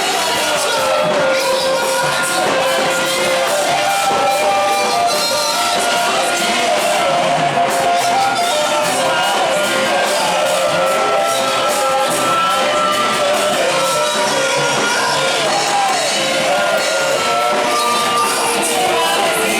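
Loud live worship music with a band and singing, with the congregation shouting and singing along in a large hall.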